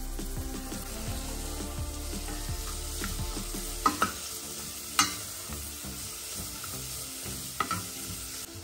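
Food sizzling in fat in a frying pan while being stirred, with three sharp knocks of a utensil against the pan, about four, five and seven and a half seconds in.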